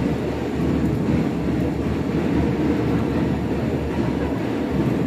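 A steady, loud, low rumbling background noise with no clear separate events.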